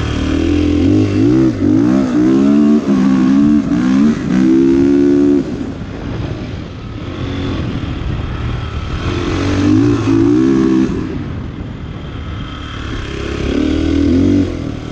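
Dirt bike engine revving up and down as it is ridden around a motocross track, pitch rising and dropping with the throttle and gear changes. It is loud in three stretches, with quieter spells between where it eases off.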